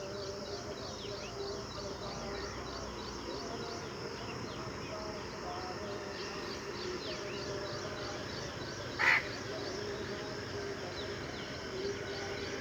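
Small birds chirping in quick repeated notes, with one short crow caw about nine seconds in, over a faint steady low hum.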